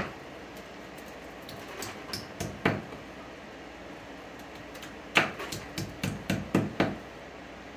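Claw hammer tapping 1/4 inch plastic anchors into drilled holes in a concrete block wall. Two knocks in the first three seconds, then a quick run of about six taps starting about five seconds in.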